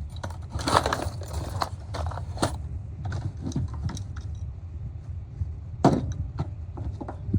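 Small metal hand tools being rummaged through and handled in a toolbox drawer: irregular clinks, rattles and rustles, with a sharp clack just before six seconds in.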